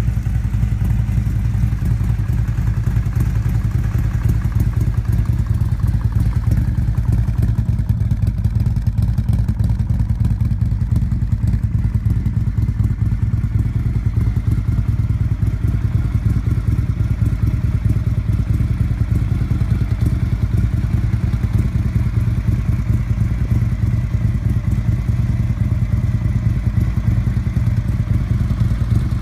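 Harley-Davidson CVO's Twin Cam V-twin engine idling steadily, with no revving.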